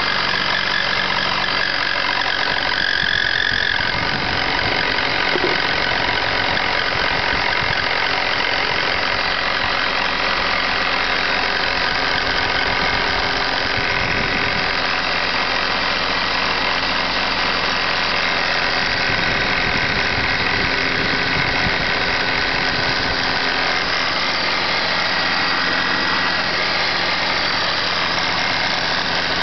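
BMW E39 engine idling on a cold start, with a knocking from the belt drive near the alternator. The owner traces the knock to the hydraulic belt tensioner.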